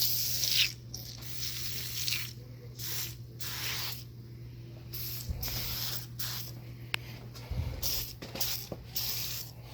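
Aerosol can of oven cleaner spraying in a series of short hissing bursts, used as a degreaser on greasy dryer parts.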